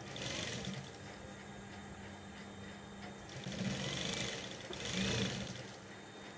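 Industrial sewing machine stitching piping onto fabric in three short runs: once at the start, and twice close together about three and a half to five seconds in. A steady hum sounds between the runs.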